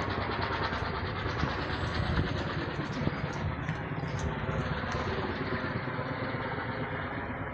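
Steady engine rumble with a continuous wash of noise and no clear rise or fall.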